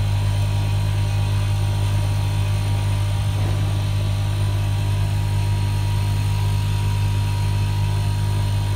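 Automatic nylon cable tie machine humming steadily at idle: a constant low electrical hum with no tying strokes.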